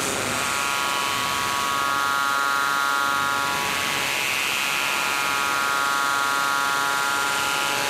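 Steady buzzing electronic drone: several high tones held together over a hiss, with a brighter upper band swelling and fading in the middle.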